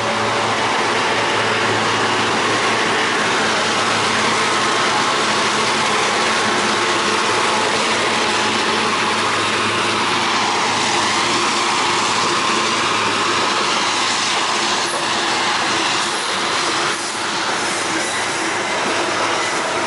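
Babaranjang coal train's loaded hopper wagons rolling past at close range: a loud, steady rush of steel wheels on the rails, with a few sharp clanks near the end.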